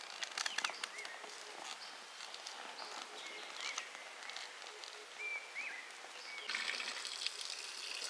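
Outdoor farm-field ambience: scattered short bird chirps over steady background noise, with a cluster of sharp clicks and rustles about half a second in and a denser rustling patch near the end.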